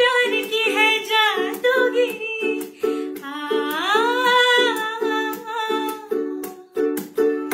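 Ukulele strummed in a steady rhythm while a woman sings. Near the middle she holds one long note that slides upward, and the strumming carries on alone toward the end.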